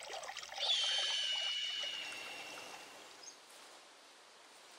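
Intro sound effect: a bright shimmering swish with a ringing high tone that comes in just under a second in and fades away over about two seconds, leaving faint forest ambience.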